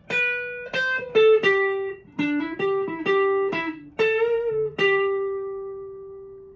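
Fender Player Telecaster electric guitar with Seymour Duncan pickups, played clean through a Vox AC10 valve amp on the bridge pickup. A melodic line of single picked notes, ending on one held note that rings out and slowly fades.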